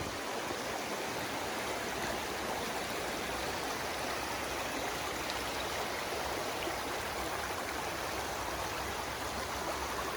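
Creek water running over a shallow rocky crossing: a steady, even rushing.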